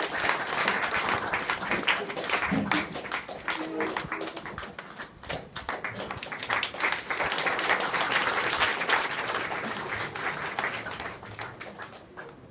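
Audience applauding, with a dip about halfway through and fading out near the end.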